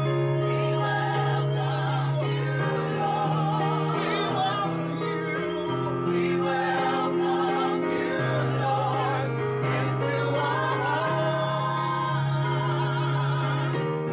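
Gospel vocal group singing in harmony over instrumental accompaniment with held bass notes that change every second or two.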